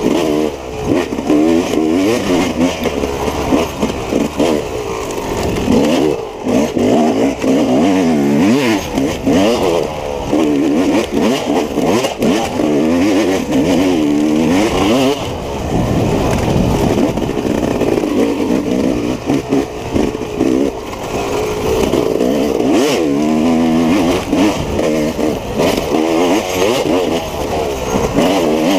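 Off-road racing motorcycle engine revving up and down over and over, pitch climbing and dropping every second or so as the rider works the throttle and gears.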